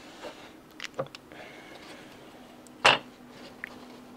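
Light clicks and knocks of a model aircraft engine and its mount being handled against the airframe while it is fitted, with one louder sharp clack about three seconds in.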